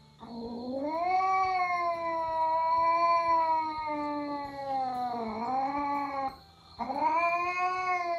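A cat yowling a drawn-out warning: one long yowl of about six seconds that wavers near the end, then after a brief break a second yowl. It is the defensive yowl of a cat hidden in a basket bed as another cat paws at it.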